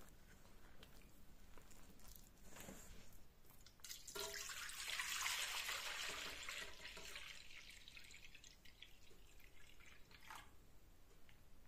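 Milk pouring from a large glass jar into an aluminium pot. After a light knock, the pour starts about four seconds in with a splashing rush, strongest for a couple of seconds, then thins to a softer, steady stream.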